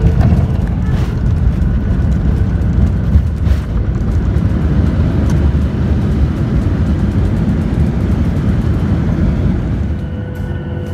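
Cabin noise of a Boeing 737-800 on its landing rollout: a steady low rumble of the engines and wheels on the runway as the jet slows, easing off near the end.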